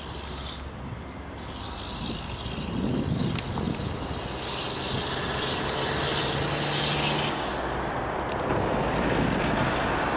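Twin jet engines of a Boeing 767-300ER during its landing run, a steady rushing jet noise that swells from about two seconds in and stays loud.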